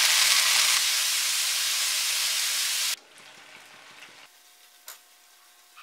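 Cherry tomatoes, garlic cloves and green chillies frying in hot oil in a pan, a loud steady sizzle. About three seconds in it drops suddenly to a faint sizzle.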